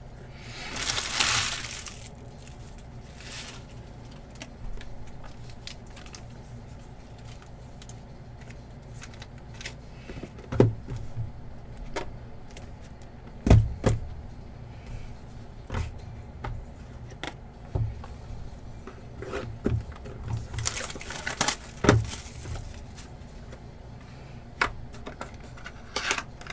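Trading cards and their packaging handled on a tabletop: short rustles of card packs and wrappers, with scattered light taps and knocks as cards and boxes are set down.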